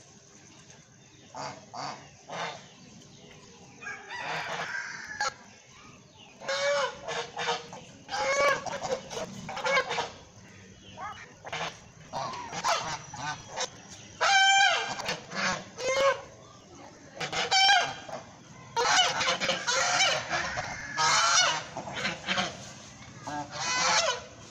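White domestic geese honking over and over, a long series of loud calls that sometimes overlap.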